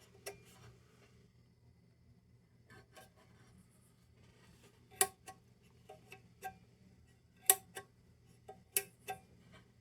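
Switch of an old Delta Powerlight battery lantern being flicked back and forth through its positions: a series of small sharp clicks, several in quick pairs, about ten in all.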